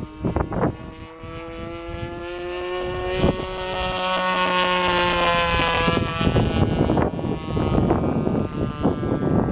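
A DLE-20 20 cc single-cylinder two-stroke gasoline engine drives an RC P-51B Mustang model in flight with a steady buzzing drone. The pitch slides slowly down while the sound grows louder as the plane comes across. Wind buffets the microphone at the start and takes over from about six seconds in.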